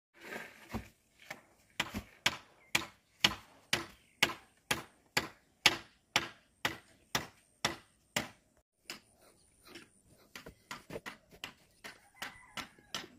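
A hand tool striking repeatedly into gravelly concrete mix in a small pit, packing it down. The strikes are sharp and come about two a second, then turn lighter and quicker for the last few seconds.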